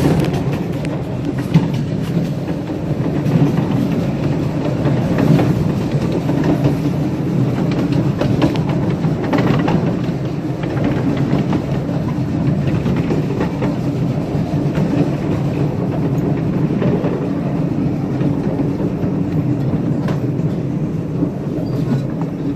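Steady rumble and rattle of a ride-on live-steam railroad train rolling along the track, with scattered clicks of wheels over rail joints.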